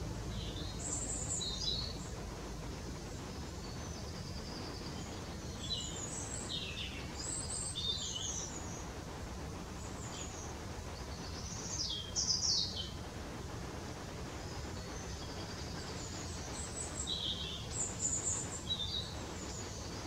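Small songbirds giving short, high chirps and calls in scattered clusters, loudest about twelve seconds in as a pair of quick falling notes. A steady low background noise runs underneath.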